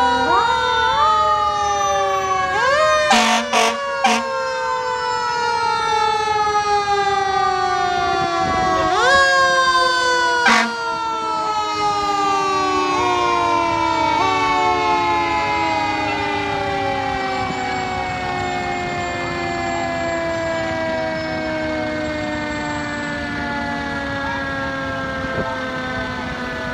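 Several fire-engine sirens wailing together, overlapping. Each one winds up quickly and then slowly winds down in pitch, and is wound up again a few times. A few short sharp blasts cut in about three to four seconds in and again near ten seconds.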